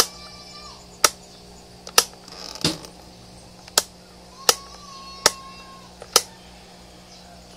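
Sharp clicks or knocks, roughly one a second at uneven spacing. Twice there is a high, drawn-out, meow-like call, near the start and again about five seconds in.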